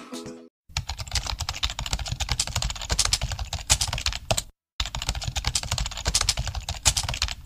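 Computer keyboard typing used as a sound effect for on-screen text being typed out: rapid key clicks in two runs, broken by a short pause about four and a half seconds in.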